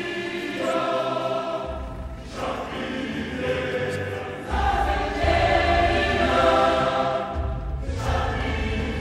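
Choral music laid over the footage: a choir singing long held chords in phrases a few seconds long.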